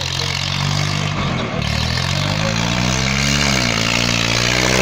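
Swaraj 855 tractor's three-cylinder diesel engine revving hard while the tractor is held up on its rear wheels. Its pitch climbs from about two seconds in, drops briefly, then rises again near the end.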